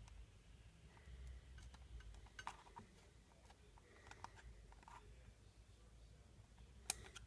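Faint clicks and taps from a Ring doorbell and its charging cable being handled and wiggled, with one sharper click near the end, over near silence.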